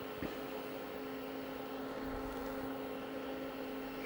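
IBM 5155 portable PC running while it starts up, with its bare floppy drive attached: a steady electrical and fan hum, with one light click about a quarter second in.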